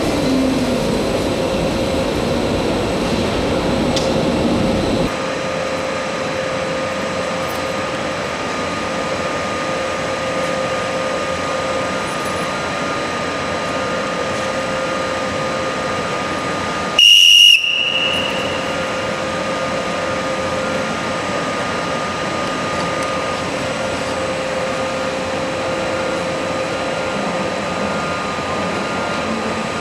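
Railway platform sounds: a train's motor whine falls in pitch and cuts off about five seconds in, leaving a steady hum with two held tones. Just over halfway through comes one short, loud, high whistle blast.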